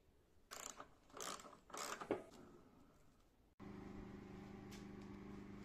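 Three short scraping, handling noises as a greased axle bolt and washer are worked by gloved hands. About three and a half seconds in they give way abruptly to a steady low hum made of several held tones.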